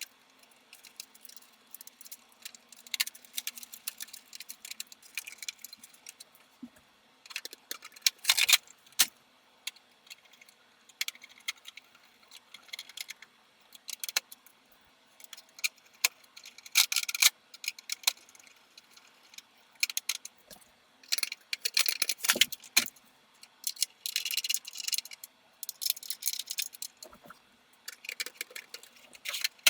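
Small metal parts being handled, with irregular clusters of clicks, clinks and rattles. A few louder jangles come near the middle and later on.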